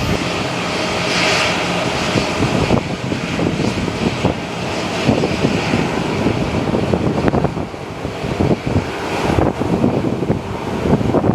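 Boeing 737-800 airliner's CFM56 jet engines running at taxi power, a steady rushing hiss that swells and eases. Gusty wind buffets the microphone with irregular low rumbling thumps.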